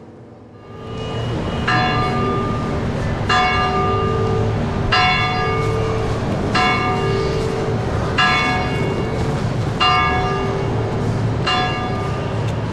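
A single church bell tolling slowly: seven strikes, about a second and a half apart, each ringing on into the next.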